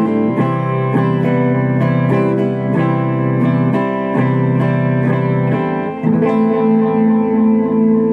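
Electric bass guitar played through effects pedals, picking a repeating line of notes about two a second; about six seconds in it changes to a sustained, ringing chord.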